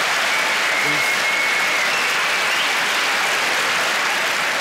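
Large theatre audience applauding steadily in response to a punchline.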